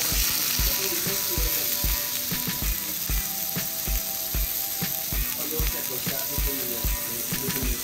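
Seasoned fish fillets sizzling steadily in a hot pan, with background music with a steady beat playing over it.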